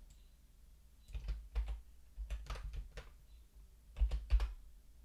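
Typing on a computer keyboard: irregular key clicks in short runs, with a couple of heavier keystrokes about four seconds in.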